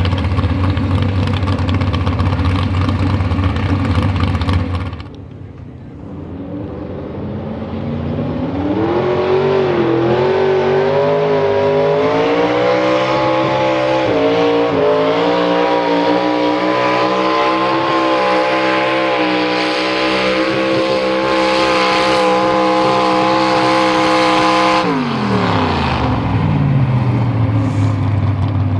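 Farmall classic modified pulling tractor's engine at full throttle hauling the weight sled: the revs climb over several seconds, hold high and steady for about twelve seconds, then drop back to idle near the end as the pull finishes. Before that, another pulling tractor's engine runs steadily at the start line and stops abruptly about five seconds in.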